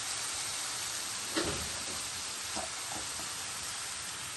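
Curry chicken sizzling steadily in a pot on the stove, cooking in its own juices without added water, with a light knock about a third of the way in.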